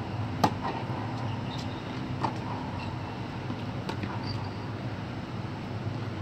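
Tennis racquets striking the ball in a groundstroke rally: sharp pops about two seconds apart, the loudest about half a second in, with a few fainter knocks between. A steady low hum runs underneath.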